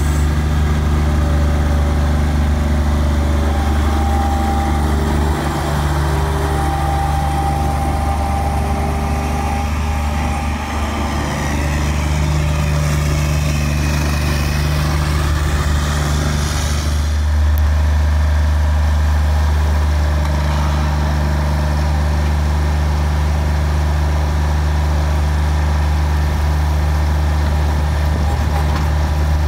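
Bobcat skid-steer loader's diesel engine running steadily while it scoops and places fresh asphalt. A high whine comes and goes over several seconds in the first third, and there is a rushing noise about halfway through.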